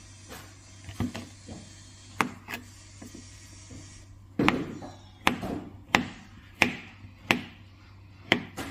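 Kitchen knife slicing an avocado on a plastic cutting board, the blade knocking sharply against the board with each cut. There are a few scattered knocks at first, then a steady run of cuts about every two-thirds of a second through the second half.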